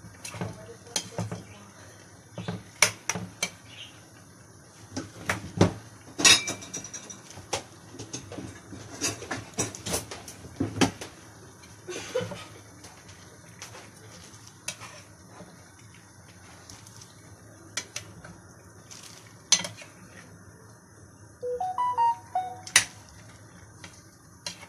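Kitchen utensils clattering: irregular sharp clinks and knocks of a spoon against dishes, with a brief pitched sound near the end.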